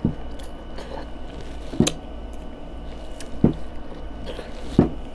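Close-up eating sounds of someone biting into sauce-coated boiled corn on the cob: four sharp crunchy bites, about one every second and a half, with wet squishy chewing between them.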